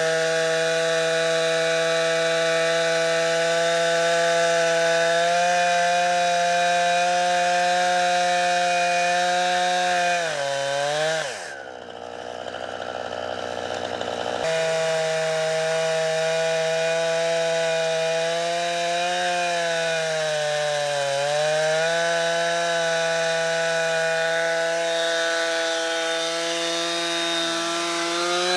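Chainsaw in a Granberg Alaskan chainsaw mill, running at full throttle as it rips lengthwise through a log. Its pitch sags under load about ten seconds in and again about twenty seconds in, and its sound drops off for about three seconds near the middle.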